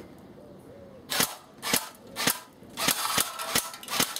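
Airsoft M4A1 rifle firing single shots, about seven sharp cracks at an uneven pace, starting about a second in.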